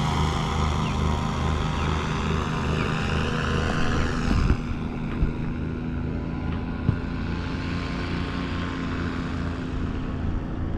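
Paramotor engines and propellers droning overhead in a steady hum, with an even low pulsing. The higher part of the sound drops away about four and a half seconds in.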